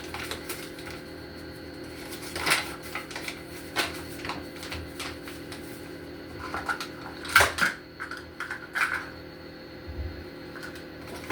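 Scattered clicks, taps and light knocks of a measuring cup and utensils being handled while flour is measured into a mixing bowl, the loudest knock about seven seconds in, over a steady low hum.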